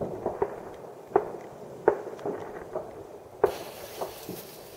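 Fireworks banging and popping in the distance at irregular intervals, several a second at times. About three and a half seconds in, a steady high hiss starts and carries on.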